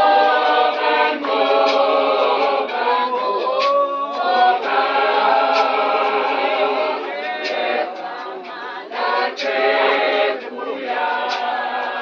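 A church congregation of men and women singing a hymn together as a choir, with sharp beats about every two seconds.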